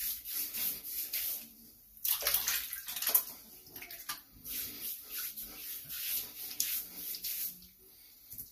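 Three-blade, pivoting-head Leaf razor scraping over a lathered scalp in a run of short strokes, several a second, mixed with the wet sound of water and lather. The strokes are loudest a couple of seconds in and thin out near the end.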